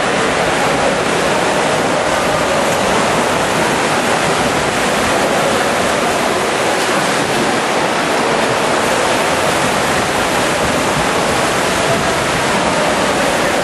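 Freestyle swimmers splashing down their lanes in an indoor pool: a loud, steady wash of water noise from kicking and arm strokes.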